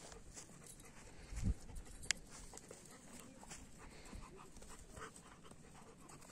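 Long-haired German shepherds panting and running over dry grass, with scattered small rustles and ticks. A single low thump about one and a half seconds in, then a sharp click.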